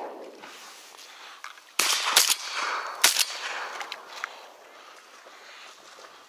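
Three shotgun shots in quick succession, the first two close together and the third about a second later, each leaving a trailing echo.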